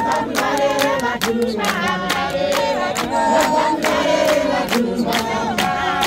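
A church congregation singing a hymn together with fast, steady hand clapping, about four claps a second.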